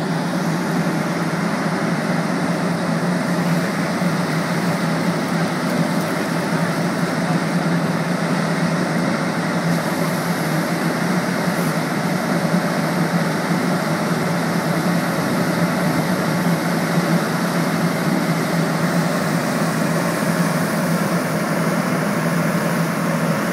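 A vehicle engine running steadily at a constant speed, a continuous low hum under a wide hiss.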